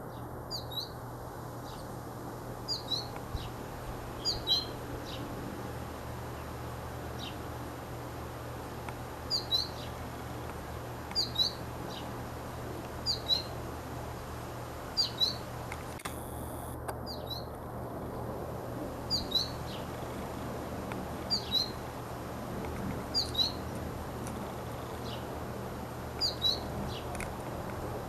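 Sparrow chirping: short, high single and paired chirps repeated about every two seconds, over a steady low background hum.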